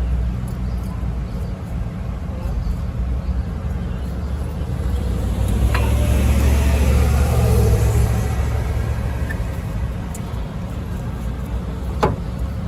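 Low, steady traffic rumble, with a vehicle passing that swells and fades between about five and nine seconds in. Two sharp metallic clicks, one about six seconds in and one near the end.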